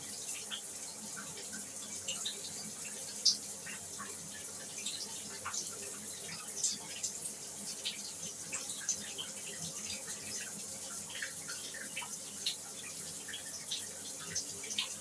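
Shower water running: a steady hiss of spray with many small irregular drips and splashes.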